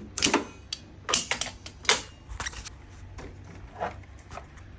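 A series of sharp clicks and knocks from hard plastic parts and tools being handled during dehumidifier repair, several close together in the first two and a half seconds and a few lighter ones after, over a faint steady low hum.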